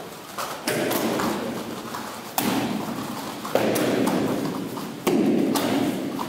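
Four heavy thuds from taekwondo practice, spaced one to two seconds apart, each ringing on in a large hall, with lighter taps between them.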